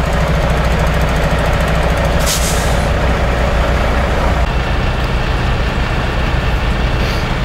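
MAN lorry's diesel engine idling close by, a steady low drone, with a short hiss of the air brakes about two seconds in.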